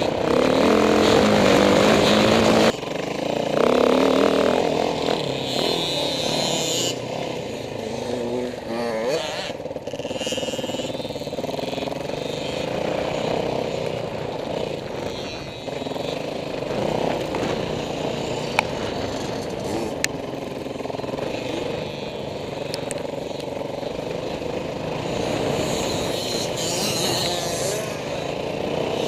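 Dirt bike engine heard from on board the riding bike, rising and falling with the throttle along a motocross track. It is loudest in the first few seconds, then runs at a steadier, lower level, with two sharp clicks in the middle.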